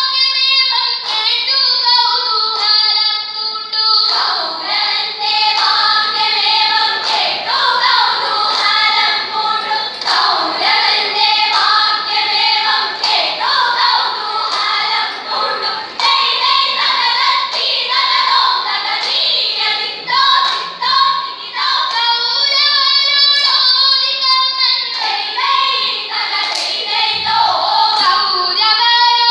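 A group of schoolgirls singing a vanchipattu, the Kerala boat song, in chorus, with sharp hand claps keeping the beat.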